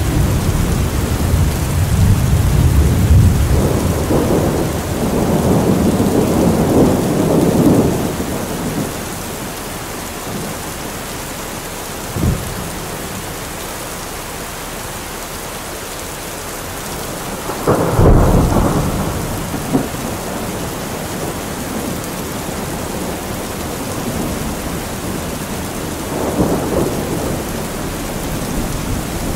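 Steady rainfall with thunder: low rumbling through the first eight seconds, a short sharp crack about twelve seconds in, a louder clap at about eighteen seconds, and a softer rumble near the end.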